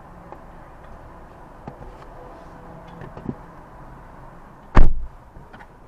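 Car door pulled shut with one heavy thump near the end, heard from inside the cabin. Before it come a few faint knocks as someone gets into the driver's seat.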